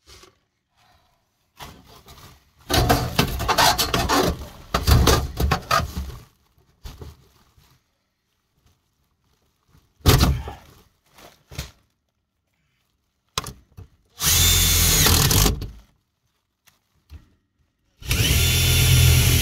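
Crinkling and rustling of a foil flexible duct being worked onto a fan collar. This is followed later by a cordless drill running in two steady bursts of about a second and a half each.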